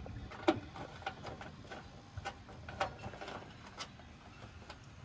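Scattered light metallic clicks and taps as cable terminals and nuts are handled and fitted onto a starter solenoid's terminal studs, the sharpest about half a second in.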